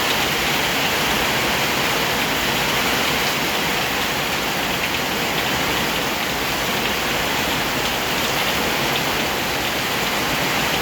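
Steady heavy rain: an even, unbroken hiss of rainfall, with a few faint individual drop taps.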